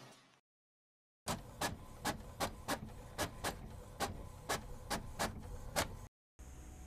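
Sound effect of a quick run of sharp mechanical clicks, about three a second, over a low steady hum, starting about a second in and cutting off suddenly near the end.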